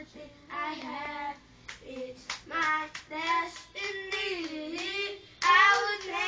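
A child singing in short phrases, loudest near the end.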